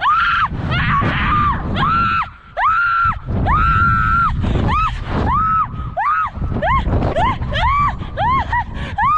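A woman screaming over and over as she drops and rebounds on a bungee cord: about a dozen high cries, each rising and falling in pitch, getting shorter and coming faster after about five seconds. Wind rumbles on the microphone throughout.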